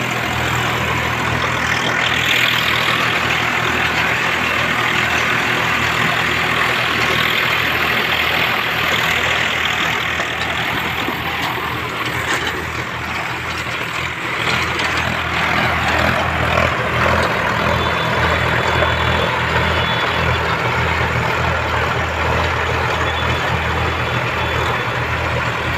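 Diesel tractor engines running steadily under load as they pull rotary tillers through dry soil, a low engine hum under the broad churning noise of the tiller blades. The engine note grows a little stronger and pulses from about halfway through.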